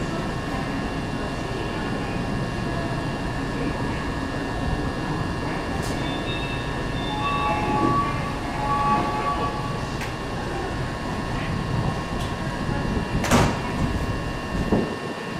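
Disney Resort Line monorail standing at a station with a steady equipment hum and several fixed tones. About seven seconds in comes a short electronic tone sequence in two parts, and near the end a single sharp knock.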